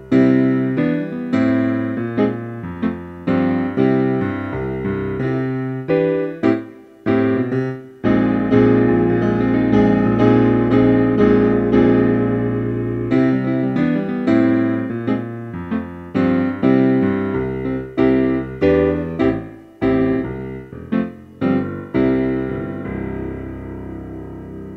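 Piano music: notes struck one after another and left to fade, with a fuller stretch of held chords in the middle.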